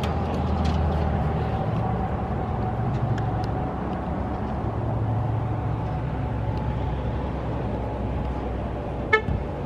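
Steady low rumble of road traffic, with a faint steady engine-like tone running underneath. A brief high-pitched squeak comes about nine seconds in.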